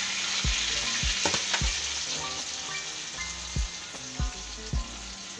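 Hot oil sizzling in a wok around a whole chicken as a dark marinade is spooned over it, with a few short knocks. The sizzle slowly dies down.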